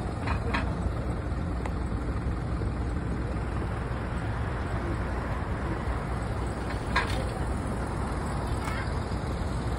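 Steady city road traffic with a bus running close by. A few short clicks, the loudest about seven seconds in.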